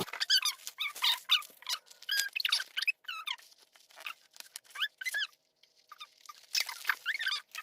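Packaging being handled as a boxed camera is unpacked: many short, high squeaks that slide up and down in pitch, typical of foam packing rubbing, mixed with light rustling and crackling.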